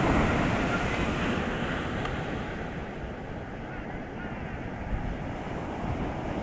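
Atlantic surf breaking and washing up a sandy beach at high spring tide, a steady rushing roar with wind buffeting the microphone. The surf is loudest at the start and eases off a little after a couple of seconds.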